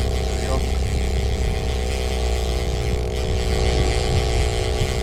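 Boat motor running steadily, a constant low rumble with a steady hum of several pitched tones on top.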